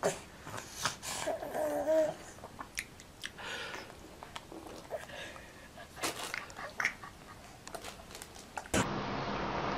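A baby biting and sucking on a lemon wedge: scattered small wet mouth clicks and smacks, with a short baby vocal sound about two seconds in. Near the end it cuts abruptly to a steady hiss.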